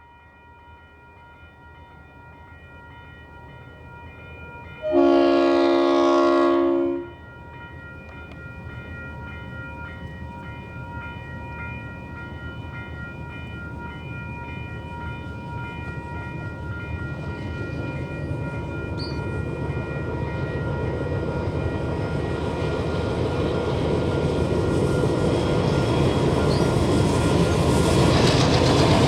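A diesel-hauled grain train, with 42 class 42103 leading five locomotives, approaching. It gives one horn blast of about two seconds, about five seconds in, then its engine rumble grows steadily louder as it draws near.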